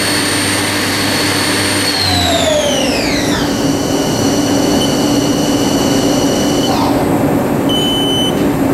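2011 Haas ST-10T CNC lathe spindle spinning down from its 6,000 RPM maximum. A high whine holds steady, falls in pitch about two seconds in, levels off, then dies out as the spindle stops a few seconds later. A steady lower hum runs underneath throughout, and a brief high tone sounds near the end.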